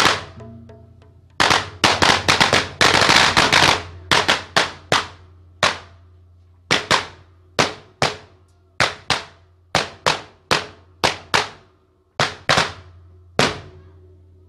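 A string of firecrackers going off: a dense, rapid crackle of bangs from about one and a half to four seconds in, then single sharp bangs every half second to a second, thinning out near the end.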